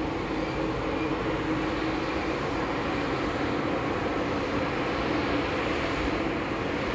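Airbus A220 airliner's Pratt & Whitney geared turbofan engines running at low taxi power as the jet rolls slowly along the runway: a steady rushing drone with a faint low hum.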